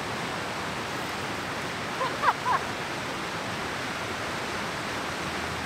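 Steady rush of a whitewater river and small waterfall, with a bird giving a few short chirps about two seconds in.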